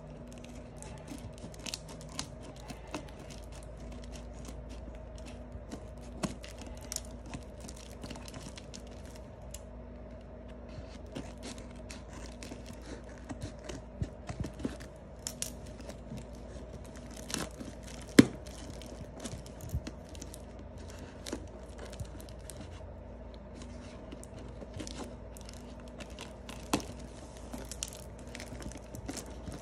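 Scissors snipping and slicing through brown packing tape and plastic wrapping on a cardboard parcel, with tape tearing and wrapping crinkling as the box is cut open. Many short snips and rustles, with one sharp, louder snap a little past the middle.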